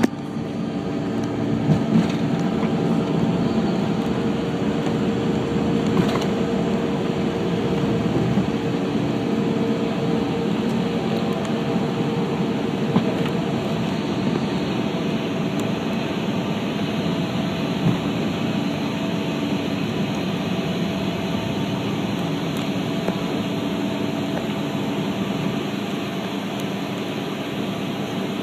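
Cabin noise of a CRJ-200ER during takeoff and initial climb: its two GE CF34 turbofans at takeoff thrust and the rush of air make a steady loud noise with a few held hum tones, one of which fades about halfway through. A few sharp knocks stand out over the noise.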